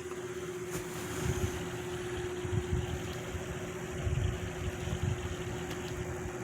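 Lasko 3733 box fan running on low speed: a steady hum over an even rush of air. Its airflow buffets the microphone in uneven low gusts.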